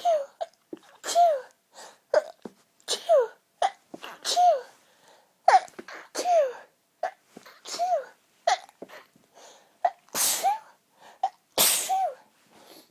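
A woman sneezing in a fit, about ten sneezes in quick succession, roughly one a second, each a sharp burst with a short falling cry. The two near the end are the loudest. It is the fit breaking after she has held her sneezes back for a long time.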